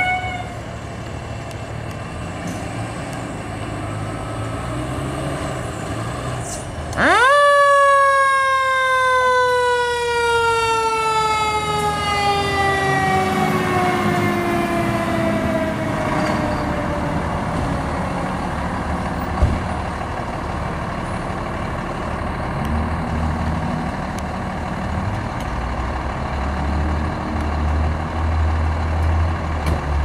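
Fire truck's mechanical siren spinning up sharply about seven seconds in, then winding down slowly over about ten seconds, over the steady running of idling fire apparatus diesels. A deeper engine rumble grows louder near the end.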